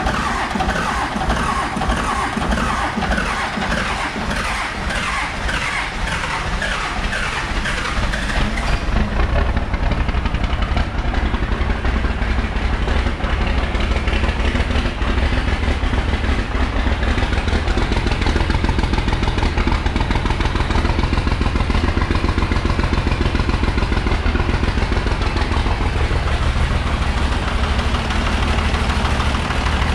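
First-generation Cummins 5.9-litre inline-six diesel cranking on the starter in an even rhythm. About nine seconds in it catches and settles into a steady, clattering idle. This is a cold start after ten years sitting.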